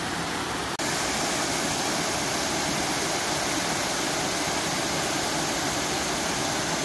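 Waterfall cascading over rock slabs into a shallow pool: a steady rushing of water. It drops out briefly just under a second in and comes back slightly louder.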